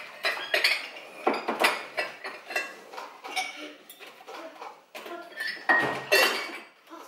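Dishes, pots and cutlery clattering and clinking as a kitchen is cleared up after a meal: an uneven run of knocks and clinks, the loudest cluster near the end with one brief ring.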